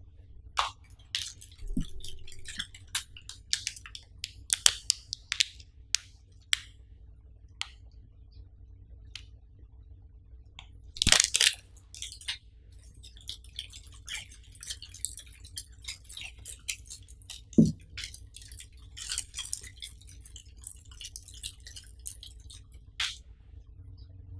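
Clear plastic packaging crinkling and crackling as it is handled, in short irregular crackles and clicks, with a louder burst of crinkling about eleven seconds in.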